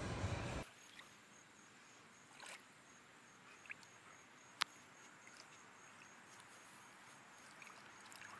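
Music cuts off suddenly about half a second in, leaving faint water lapping and splashing in a plastic paddling pool as dogs paw at the water, with one sharp click about halfway through.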